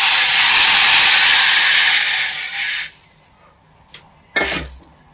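Water poured into a hot steel pan of dry-roasted black peppercorns, hissing loudly as it flashes to steam, then dying away after about three seconds. A short clatter comes about a second and a half later.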